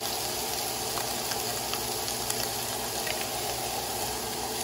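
Food sizzling in a hot oiled pan: a steady hiss with a few faint crackles.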